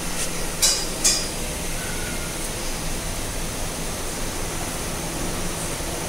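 Steady rushing noise with a faint low hum, typical of a cattle barn's ventilation fans, broken by two sharp knocks about a second in.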